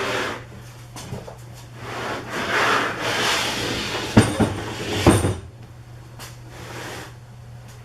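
Something being slid or dragged across a surface for about three seconds, ending in two sharp knocks about a second apart, over a steady low hum.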